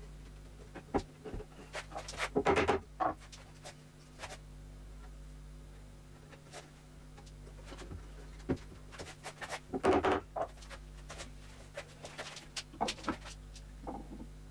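Knocks, taps and clatter of wooden furniture parts being handled and fitted together during a glue-up, with two louder bursts of clatter about two and a half and ten seconds in, over a steady low hum.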